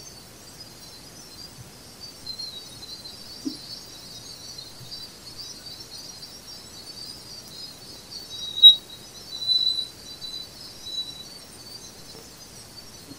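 Voyager 2 Plasma Wave Science recording of Jupiter's magnetosphere played as audio: a steady high hiss with a few faint chirps, a short sharp tone about nine seconds in, followed by a few brief whistles.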